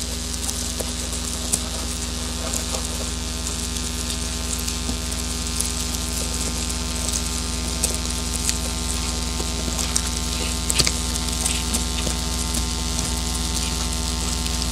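Electronic drone from a patch-cabled modular synthesizer: a steady low hum layered with held tones and hiss, with scattered crackles and clicks, the sharpest about 11 seconds in.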